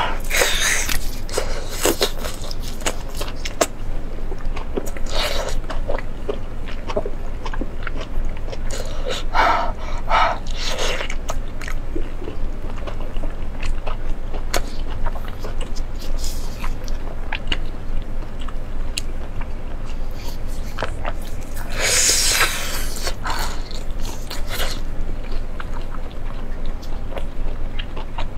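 Close-miked biting and chewing of braised pork large intestine: wet mouth sounds with scattered sharp clicks and a few louder bites, the loudest about two-thirds of the way through. A steady low hum runs underneath.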